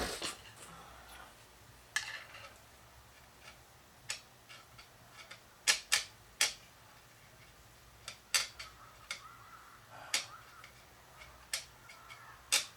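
Scattered sharp clicks and clinks, irregularly spaced, from hand tools and metal parts being handled during work on a front differential. The loudest come as a quick group of three about six seconds in.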